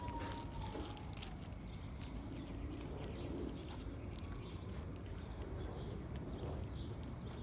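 Faint outdoor ambience: distant birds chirping over a steady low rumble, with a few light clicks and rustles from the phone being held among the evergreen branches.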